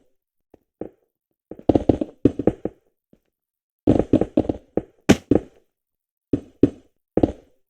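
Keys of a Logitech G213 Prodigy Mech-Dome membrane keyboard pressed in quick bursts of several keystrokes, with short silent pauses between the bursts. One sharper, brighter click comes about five seconds in.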